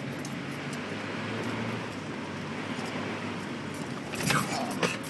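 Jeep driving through water: a steady engine hum under a hiss of water and tyres. About four seconds in come two sharp knocks, half a second apart.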